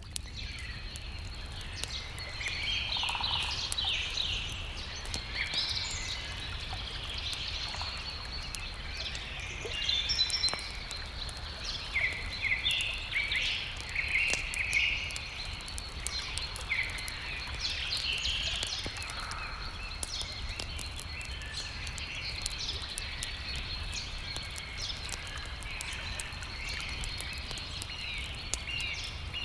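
Several songbirds chirping and trilling, busiest about a third to halfway through, over a steady low rumble and a thin continuous high tone, with scattered faint clicks of a crackling campfire.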